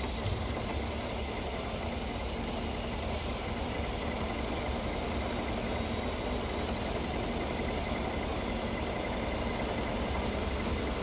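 A rail crane's engine running steadily as it makes a lift, a low hum under a constant hiss.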